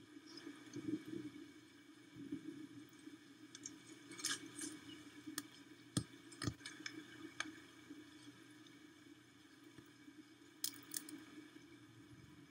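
Faint rain at a nest-camera microphone: scattered light ticks and taps of drops over a low steady hum, with two low thumps about six seconds in.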